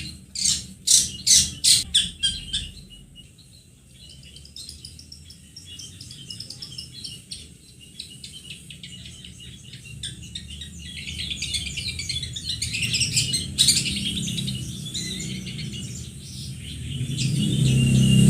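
Long-tailed shrike (pentet) calling: about two seconds of loud, harsh notes repeated several times a second, then a fast, continuous high twittering song that builds in loudness. A low hum runs underneath and grows near the end.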